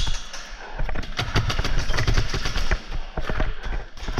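Airsoft guns firing: a dense, irregular clatter of rapid sharp shots and impacts.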